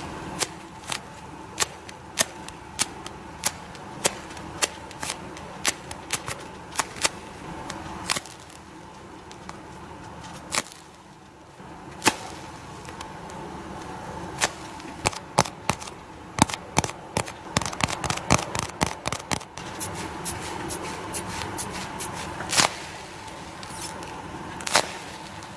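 A handmade squishy in the shape of a fish-shaped wafer snack being squeezed and handled, giving sharp crackling clicks. The clicks come about two a second at first, thin out for a few seconds around the middle, then come faster and denser in the second half.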